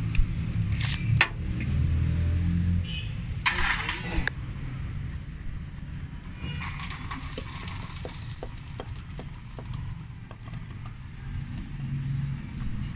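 Small metallic clicks and clinks of hands and tools working on a CAV diesel injection pump, over a steady low hum. A brief louder rush of noise comes about three and a half seconds in.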